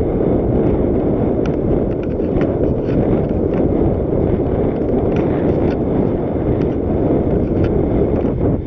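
Mountain bike rolling fast down a dry dirt trail, with heavy wind rumble on the microphone and tyre noise, and scattered small clicks and rattles from the bike.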